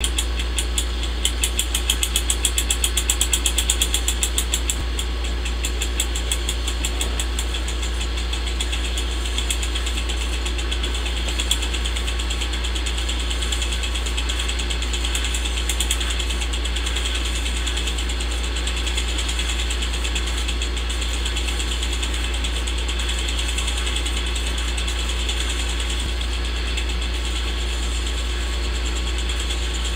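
Old film projector sound: the mechanism running with a steady low hum and hiss and a fast mechanical clatter, the clicking most pronounced in the first few seconds.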